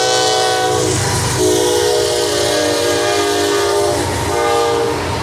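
Diesel freight locomotive's multi-note air horn blowing in long blasts over the rumble of the train, with short breaks about a second in and again near the end.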